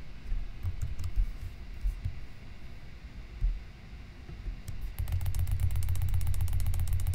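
Computer keyboard and mouse clicks: a few scattered clicks, then from about five seconds in a fast, evenly spaced run of clicks over a low hum.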